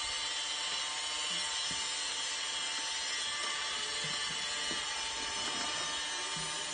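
A steady high-pitched whine and hiss throughout, with light rustling and handling noise of plastic snack packets and cardboard as items are lifted out of a box.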